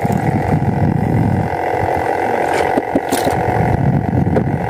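Steady drone of a boat engine under low wind rumble on the microphone, with a few light clicks around the middle.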